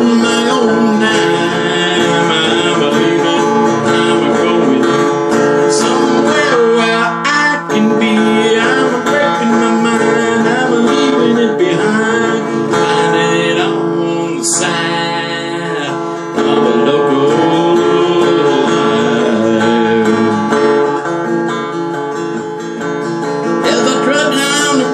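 Acoustic guitar strumming a blues instrumental passage.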